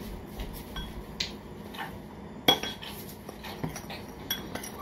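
Metal teaspoon clinking and scraping against a small glass bowl as dry seasoning is measured and stirred: a string of light, irregular clinks, the sharpest about two and a half seconds in.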